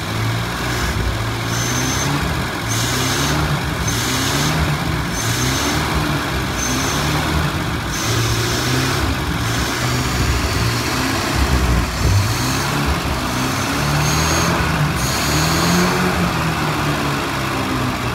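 1949 Packard's straight-eight flathead engine, its air cleaner off, running and revved up and down by hand at the carburettor throttle again and again, about once every second or so, with a hiss each time it revs. The engine has just been brought back to running after sitting for years, with a stuck intake valve being worked free.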